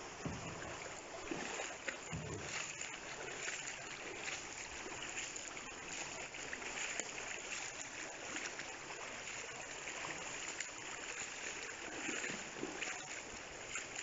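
Shallow floodwater sloshing and splashing over a steady rushing hiss, with small scattered splashes throughout.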